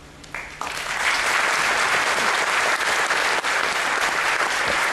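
Audience applauding. A few claps start about half a second in and quickly build into steady, full applause.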